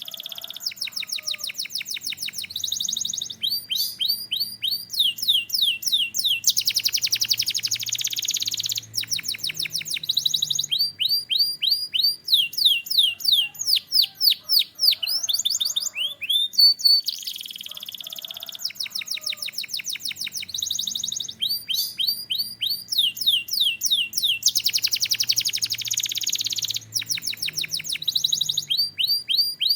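Domestic canary singing a long, continuous song of rapid trills and rolls: fast trains of repeated down-sweeping notes at several speeds, with buzzier rolls between them. The same song comes round again about every 18 seconds.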